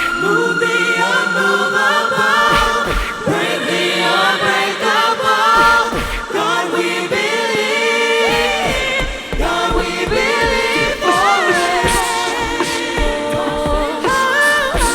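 A cappella vocal group singing in harmony, several voices moving together.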